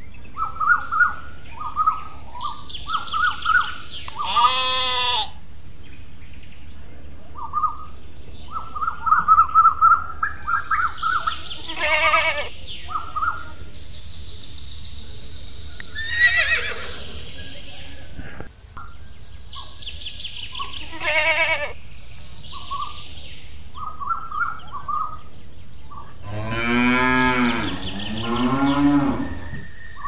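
Farm ambience: small birds chirping throughout, several higher-pitched animal calls, and near the end a cow mooing twice with long, low calls.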